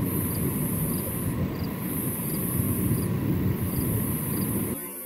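Steady vehicle rumble with a high-pitched insect chorus outside, which sounds in long pulses broken by short gaps about every second and a half. The rumble drops away sharply near the end.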